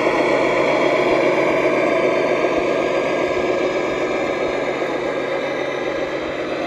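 Tamiya 1/14 Mercedes-Benz Actros 1851 RC truck's onboard sound unit playing a diesel truck engine, running steadily while the model rolls slowly.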